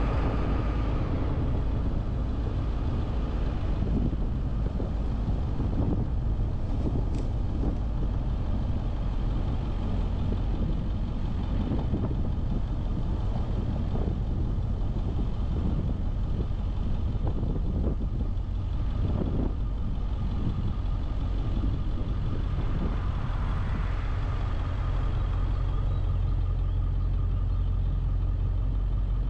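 A car's engine and tyre noise as it drives, a steady low rumble with a few soft knocks from bumps in the road. A hiss swells and fades briefly about three-quarters of the way through.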